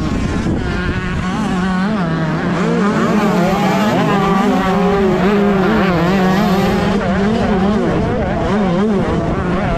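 125cc two-stroke motocross bike engine running hard, its pitch rising and falling repeatedly as it revs up and down.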